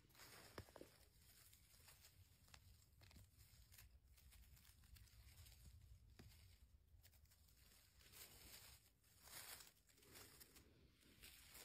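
Faint rustling and crackling of moss and forest-floor plants as chanterelle mushrooms are pulled up by hand, with a few soft clicks and scattered swells of rustle.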